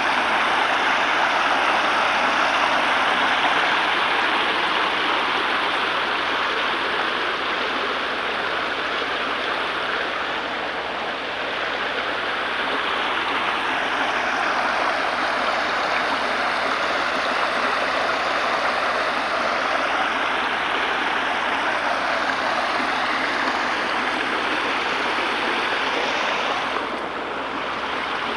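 Steady rushing of running water, unbroken throughout, easing slightly near the end.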